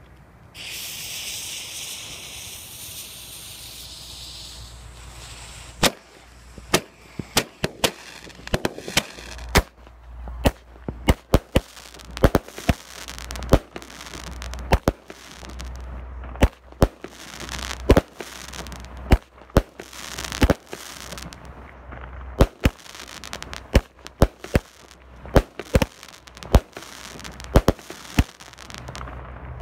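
A lit firework fuse hissing for about five seconds. Then a 25-shot firework cake (Orion Pirotehnika 'Vampire') fires: a long, irregular run of sharp bangs as the shots launch and burst, several a second at times.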